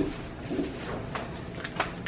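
Wind buffeting the microphone as a low rumbling hiss, with a few short, light clicks and knocks about a second in and near the end.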